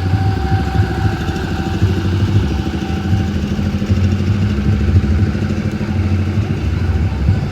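Heavy, booming bass from a huge carnival sound system ('sound horeg'), its low notes pulsing on and off with a rumbling, engine-like quality.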